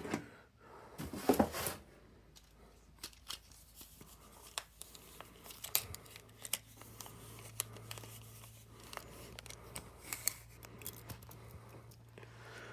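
Hands handling a PC case: scattered clicks, taps and rustling, with a louder clatter about a second in. A low steady hum comes in about halfway through.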